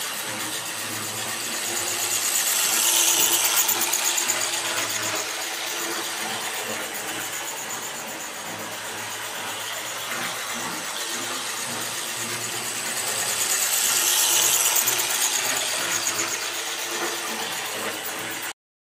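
An old model railway locomotive running on the track, its motor and gears whirring and rattling, a little bit noisy. It grows louder twice, about three seconds in and again near the end, as it passes close, then the sound cuts off suddenly.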